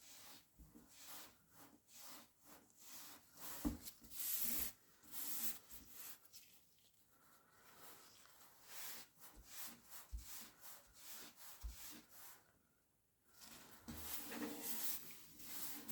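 Short, irregular rubbing strokes on the surface of a Pokémon trading card as it is hand-polished to lift grime and fine scratches from the holo. The strokes pause briefly near the end, and there is one light knock a few seconds in.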